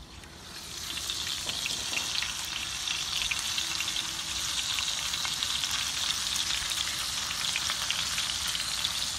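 Steaks sizzling as they fry in hot fat with garlic and herbs: a steady crackling hiss full of small pops, fading in over the first second.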